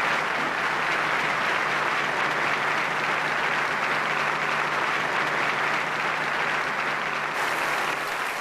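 Large audience applauding steadily, with a faint steady hum underneath. The applause changes character about seven seconds in.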